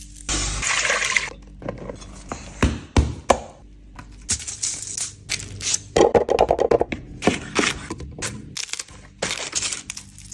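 Close-up kitchen food-preparation sounds: a run of sharp clicks, knocks and scrapes, with short bursts of hiss about half a second in and about six seconds in.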